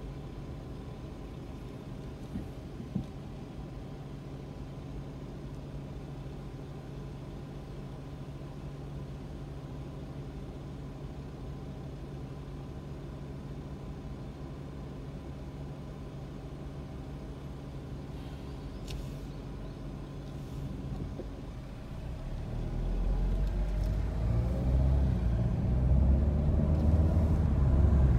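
Car engine idling with a steady low hum while stopped, two small ticks about two to three seconds in; about 22 seconds in, the engine and road rumble rise as the car pulls away and picks up speed.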